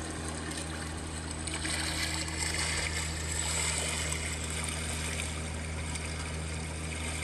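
Steady trickling, bubbling water sound over a low, steady hum, a little louder from about a second and a half in.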